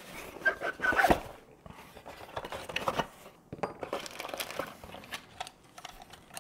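A security camera's retail packaging being opened and handled by hand: irregular tearing, crinkling and rustling with small knocks, and a short squeak about half a second in.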